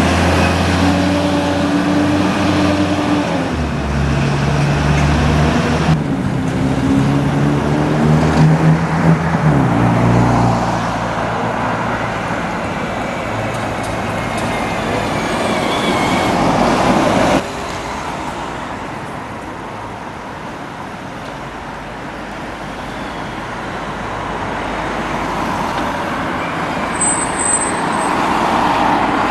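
Single-deck diesel buses passing close by. The first bus's engine note rises and steps down through gear changes as it pulls away. Later, quieter street traffic swells as a second bus approaches and goes past.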